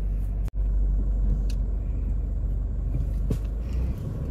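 Toyota Fortuner 4x4's engine idling, a steady low rumble heard from inside the cabin, with a momentary drop-out about half a second in.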